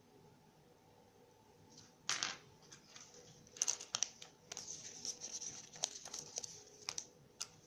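Thin wrapping crinkling and tearing in irregular bursts as it is handled, starting about two seconds in, with a few sharper crackles.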